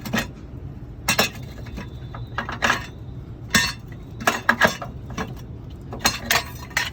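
Irregular metallic clinks and knocks, a dozen or so at uneven intervals, from tools and metal parts being handled while an old engine mount is worked out from under a car.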